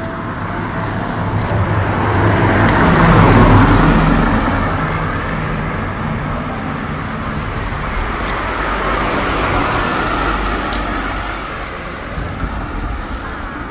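Road traffic: a car passing by, growing to its loudest about three seconds in and then fading, followed by a fainter second vehicle passing a few seconds later.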